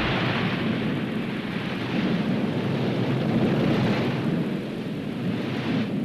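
Volcanic eruption rumbling: a continuous, deep, noisy roar with no distinct blasts, swelling about two seconds in and easing near the end.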